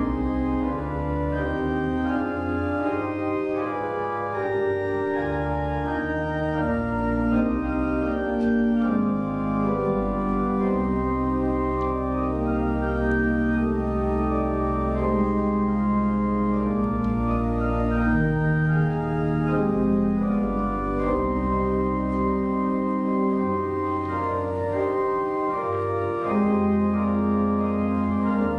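Organ playing a slow piece of sustained chords over deep held bass notes, the chords changing every second or two.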